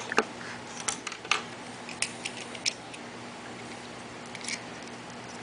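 Small plastic clicks and taps from a Lego minifigure being handled, a few scattered over the stretch, over a faint steady hum.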